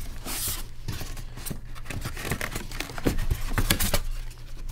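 White foam packing pieces being pulled out of a cardboard box, scraping and rubbing against the cardboard and each other in a busy run of rustles, scrapes and clicks. The handling is busiest about three seconds in.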